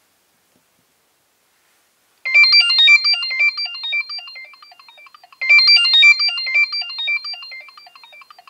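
Nokia 6820a mobile phone playing a ringtone through its loudspeaker: a quick melody of short, bright notes that starts about two seconds in. The phrase plays twice, each time dying away toward its end.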